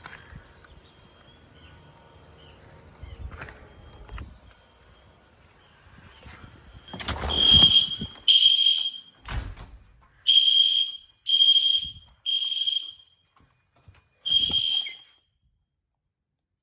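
Fire alarm sounding a high-pitched steady tone in pulses from about seven seconds in: two beeps, three more about a second apart, then a last one after a short pause. A heavy thump falls between the early beeps, and there are a few quieter knocks before the alarm starts.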